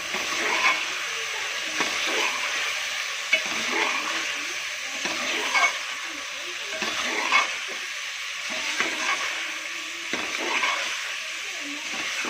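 Chicken and ground spices frying in oil in a karahi, a steady sizzle, while the masala is stirred and scraped round the pan with a scrape or knock every second or two.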